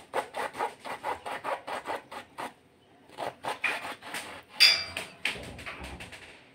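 Serrated kitchen knife sawing back and forth through a ripe mango's skin and flesh, a quick run of rasping strokes, about six a second. After a short pause come slower, uneven strokes, the loudest about four and a half seconds in.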